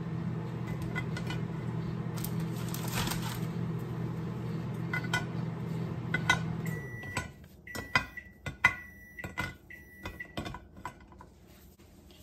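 Microwave oven running with a steady hum that stops suddenly about seven seconds in. Several short high beeps follow, signalling that the heating cycle is done. Light clicks and clinks come from cookies being set into a ceramic baking dish.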